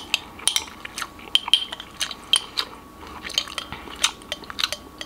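A metal spoon clinking and scraping against a container of thick overnight oats as they are stirred and scooped, in quick irregular taps.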